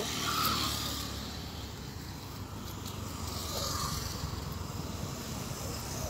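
Low, steady vehicle rumble, like nearby road traffic, that swells a little midway. Over it come faint rustles and small ticks from a nylon cast net being handled as fish are picked out of it.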